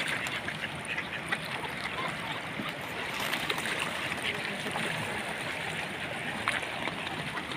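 A crowded flock of mallards on open water: a steady wash of water with many small splashes and pecks as the ducks paddle and dabble.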